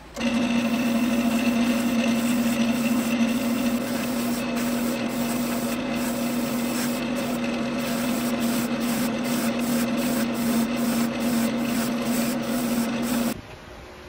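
Lathe running a wire wheel brush in its chuck, with the steady hum of the spinning machine under the scratching of steel bristles against a pewter knob as tarnish and corrosion are scrubbed off the metal. It starts abruptly and cuts off suddenly near the end.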